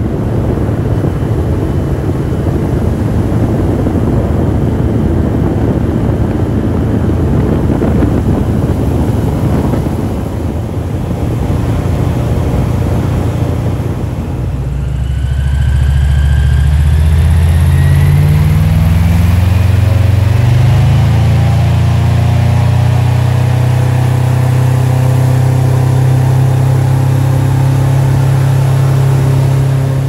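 Airboat engine and propeller running loudly. At first it is a dense rushing noise. About halfway through, a strong engine note comes in, rises in pitch as it revs up, then holds steady.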